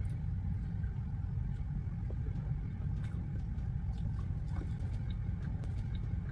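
Steady low background rumble with faint scattered clicks and smacks of eating with the hands.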